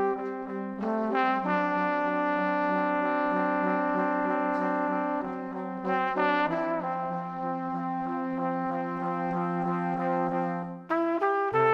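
Background music of held brass chords, several notes sounding together, moving to new chords about a second in, around six seconds in, and near the end.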